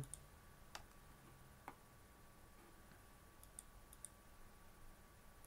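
A few faint computer mouse clicks over quiet room tone, as objects and menu items are selected on the computer.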